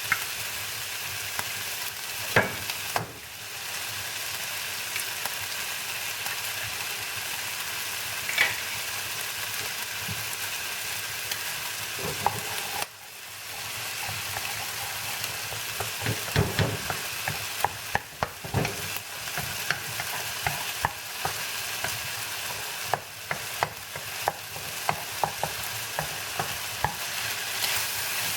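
Eggs frying with bacon, onion and garlic in olive oil in a pan, a steady sizzle, stirred with a utensil that clicks and scrapes against the pan, more often in the second half. The sizzle drops briefly twice, about three and thirteen seconds in.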